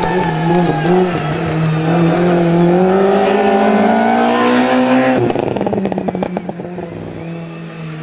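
Race car engine pulling hard, its pitch climbing for about three seconds, then cutting off abruptly just after five seconds in with a quick run of exhaust crackles on the lift-off, settling to a lower steady note.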